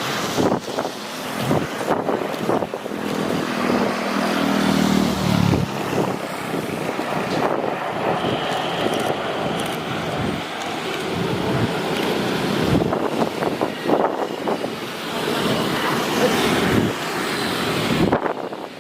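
Strong wind buffeting the microphone in gusts, over the steady rush of engine noise; a pitched engine hum stands out for a couple of seconds about three seconds in.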